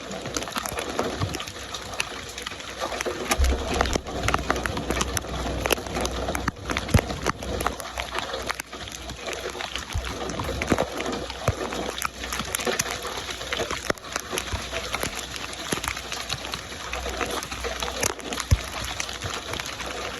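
Steady rain falling, with many separate drops striking close by as sharp ticks over a continuous hiss, and a low rumble that comes and goes underneath.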